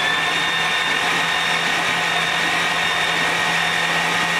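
Electric starter motor cranking the swapped small-block V8 with all its spark plugs out, to clear fuel from the flooded, hydrolocked cylinders. It makes a steady whine that holds even, with no rise and fall of compression strokes.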